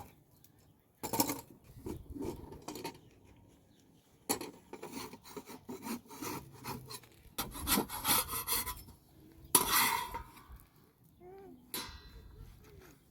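Metal cookware and utensils clattering and scraping in a series of irregular bursts, loudest about two-thirds of the way through.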